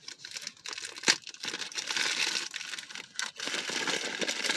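A mailing envelope being torn open and crinkled by hand: steady crinkling broken by sharp rips, the loudest about a second in and again about three seconds in.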